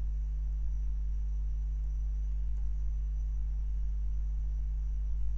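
Steady low electrical hum, the mains hum of the recording setup, with a faint high whine above it.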